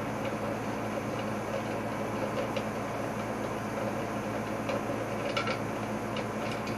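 Steady low background hum, with a few faint light clicks and taps from handling small parts.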